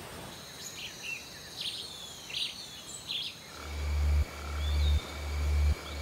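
Rainforest ambience: a few short bird chirps in the first half, then steady high insect tones. From just past halfway a deep pulsing throb begins and is the loudest sound; each pulse swells and cuts off sharply, about every three-quarters of a second.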